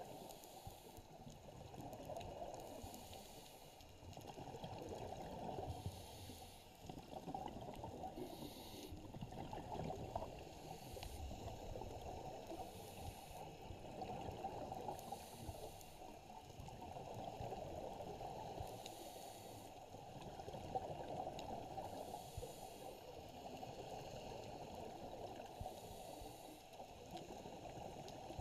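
Muffled underwater sound of scuba divers breathing through their regulators, with bursts of exhaled bubbles every few seconds.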